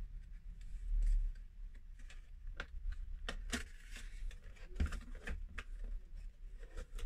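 A cardboard product box being handled and opened by hand: scattered small scrapes and clicks of the cardboard, with a dull bump about a second in.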